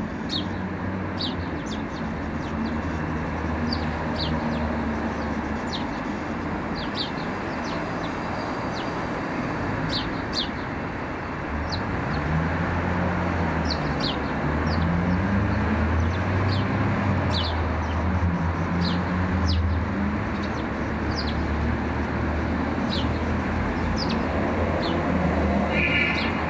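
A steady rumble of traffic or an engine, its pitch rising and falling and getting louder about halfway through, with short high chirps of small birds scattered irregularly over it.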